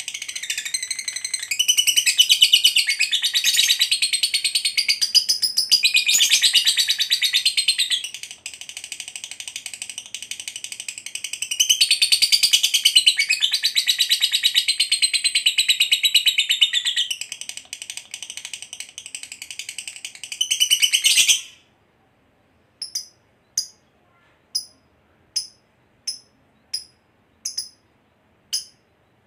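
Lovebird singing a long, continuous, high-pitched chattering trill (ngekek) that cuts off abruptly about 21 seconds in. Short single sharp chirps follow, evenly spaced a little under a second apart.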